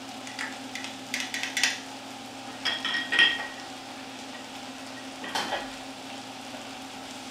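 Vegetables sautéing in oil in a pan with a steady sizzle, while a utensil stirs them. It clinks and scrapes against the pan in three short runs: about a second in, around three seconds in, and just past five seconds.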